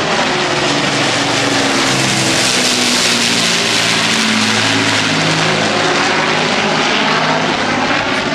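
An Avro Lancaster bomber's four Rolls-Royce Merlin V12 engines running as it flies low overhead and then draws away, loudest about three seconds in.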